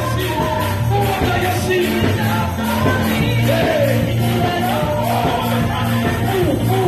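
Live gospel music: a lead singer through a microphone and loudspeaker, backed by a band with a drum kit keeping a steady beat under sustained low notes.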